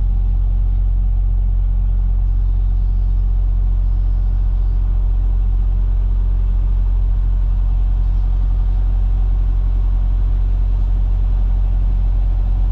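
Semi truck's diesel engine heard from inside the cab, a steady low drone.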